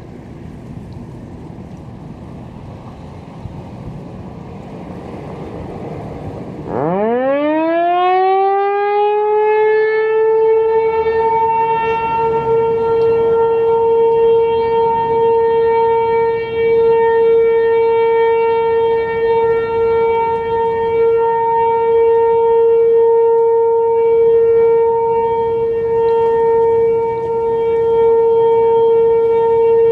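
American Signal Tempest T-128 outdoor warning siren starting up for its weekly test: after about seven seconds of wind on the microphone it winds up in a steep rising glide, then holds one steady, loud tone with strong overtones.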